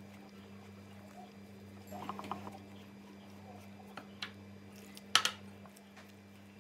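Light kitchen handling sounds while dough is being made: a few short clicks and knocks, with a small cluster about two seconds in and the loudest pair of knocks just after five seconds, over a steady low hum.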